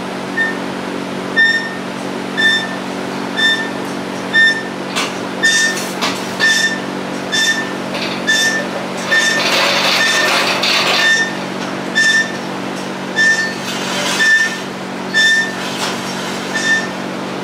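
Electronic warning beeper sounding a short high pip about once a second, steady and even, over a constant machine hum. A few knocks come about five to seven seconds in, and a short hiss about ten seconds in.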